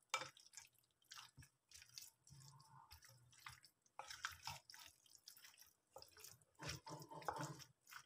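Faint wet squelching and scattered light clicks of a wooden spoon stirring chopped tomatoes, onions and marinated chicken pieces in a glass bowl, a little louder about halfway through and near the end.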